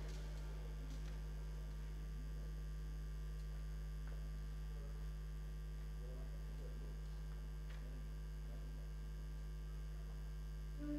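Steady low electrical hum.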